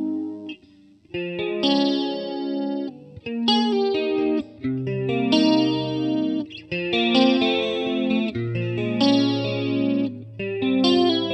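Electric guitar alone, a Kiesel FG2 run direct through a HeadRush Pedalboard effects unit, playing held chords that are cut off and re-struck several times. There is a near-silent break about half a second in.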